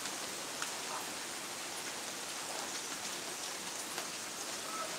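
Rain that has eased off, falling steadily on the ground and surroundings as an even hiss, with a few sharper drop ticks scattered through it.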